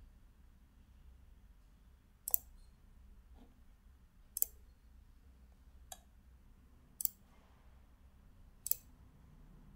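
Five separate mouse clicks, short and sharp and spaced one to two seconds apart, as menus and links are clicked on a computer, over a faint low room hum.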